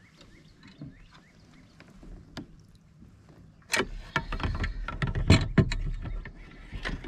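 Plastic fish measuring board knocking and clattering against a kayak hull as it is handled and set down, starting about halfway through: a dense run of knocks and bumps, the loudest a little after the middle.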